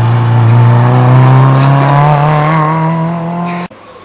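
Rally car engine running hard and loud at close range, its pitch climbing steadily as it accelerates. It cuts off suddenly near the end, leaving a fainter engine sound.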